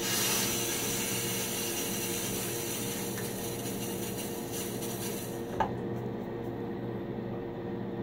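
Bathroom tap running as water is splashed onto the face, then shut off with a click about five and a half seconds in. A bathroom exhaust fan hums steadily underneath.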